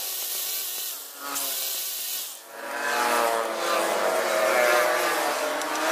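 Road traffic: a motor vehicle's engine running, rising in pitch and growing louder about halfway through.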